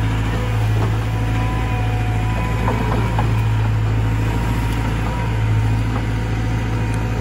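Cat 320 GC excavator's diesel engine running steadily as the machine works, with a thin whine that holds for a couple of seconds early in the stretch and a few faint knocks.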